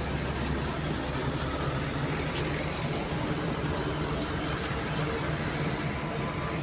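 Steady outdoor background noise with a low hum and a few faint high clicks.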